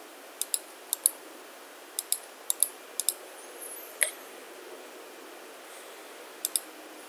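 Computer mouse buttons clicking, mostly in quick pairs like double-clicks, five or six times, with one louder single click about four seconds in. A faint steady hiss lies under the clicks.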